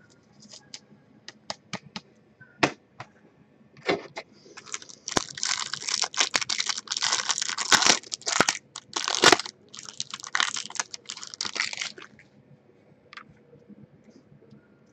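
A 2015 Topps Heritage Football pack or mini box is torn open and its wrapper crinkled. First come scattered sharp clicks of the cards and box being handled. From about four seconds in there is a long spell of crackling and crinkling, with a short break about halfway, and it stops a few seconds before the end.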